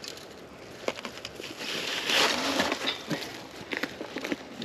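Dry leaves and brush rustling and crunching, with scraping and a few knocks, as an old motorcycle is pushed through the undergrowth. The loudest rustle surges about two seconds in.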